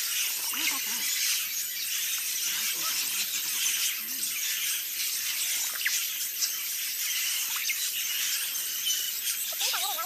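A large mixed flock of parrots and scarlet macaws calling: a dense, continuous din of high-pitched squawks and chatter, with single louder squawks standing out here and there.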